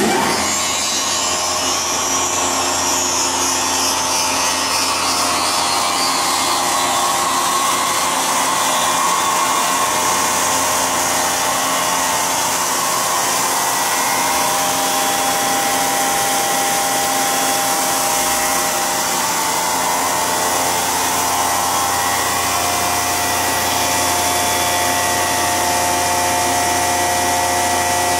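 FPEC vacuum paddle blender's electric motors switching on all at once and running steadily: a loud, even machine whir with several steady hum tones.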